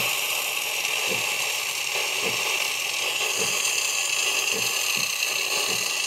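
Crossland CC1 espresso machine's steam wand purging condensation into the drip tray: a steady hiss of steam with a soft low thump about once a second. The thumping comes from the thermoblock making steam on the fly.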